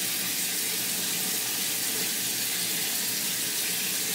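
Tap running steadily into a sink, a constant even hiss of water.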